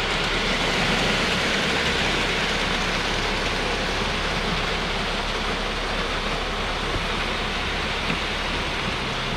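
Concrete mixer truck running at raised engine speed with its drum spinning, under a steady, even rushing hiss of wet concrete churning; the drum is being spun up to mix in a set accelerator.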